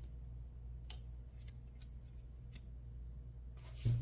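Faint, scattered metallic clicks of lock picks working the pin stack inside a brass padlock's keyway, over a steady low hum. A louder breathy noise swells up near the end.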